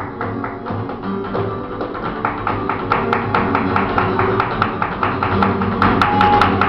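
Live flamenco music in the caña form: acoustic flamenco guitar playing under a fast, steady run of sharp percussive taps from the dancer's zapateado footwork, about four to five a second. Near the end a singing voice comes in.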